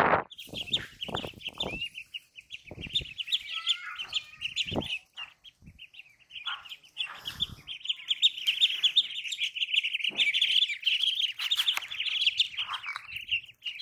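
A flock of ducklings peeping, a dense run of rapid high chirps that grows fuller and louder in the second half. Several sharp knocks stand out in the first two seconds and once more about five seconds in.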